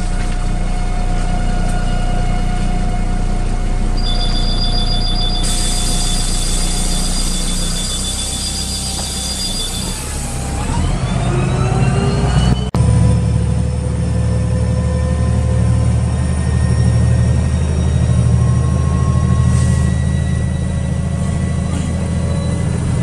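Karosa B961 city bus heard from inside the cabin. Its engine idles at a stop while a high two-tone beeping signal sounds for about six seconds. About ten seconds in, a rising whine starts as the bus pulls away, and the engine then runs harder under load.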